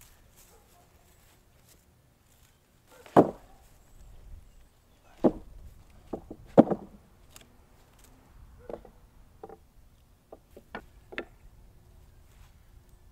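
Wooden clunks and knocks as maple slabs and 4x4 spacer boards are set down and shifted on a stack. Two loud thuds come about three seconds and six and a half seconds in, with a couple more in between, then a run of lighter knocks near the end.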